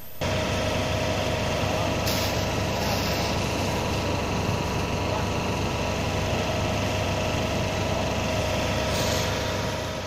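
Fire truck engine running steadily at idle, a constant hum with a steady drone over it.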